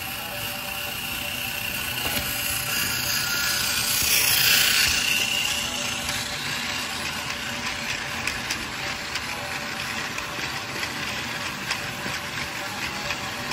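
Tomy Plarail Percy battery toy train running on plastic track: a small motor whirring with rapid clicking from the gears and wheels. It swells to its loudest about four to five seconds in, as if passing close.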